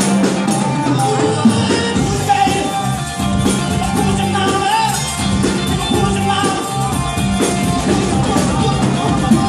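Live rock band playing through a bar PA: electric guitar, drum kit and bass under a male lead vocal, with held, bending sung notes.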